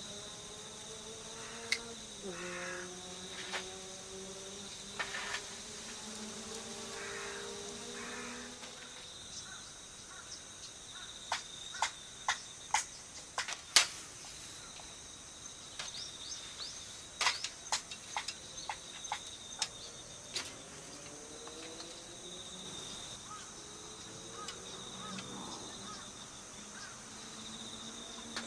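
Steady, high-pitched chorus of insects outdoors. Over it come a low hum that shifts in pitch during the first third and again near the end, and a run of sharp clicks and knocks through the middle.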